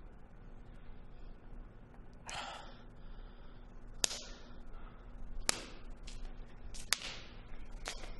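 A man slapping his own face three times, sharp slaps about a second and a half apart, as self-punishment. A short sharp breath comes a couple of seconds before the first slap.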